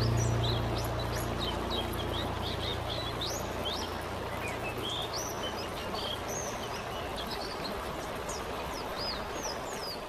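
Many birds chirping in quick short calls over a steady rush of falling water, while the held tones of a music chord fade away over the first few seconds.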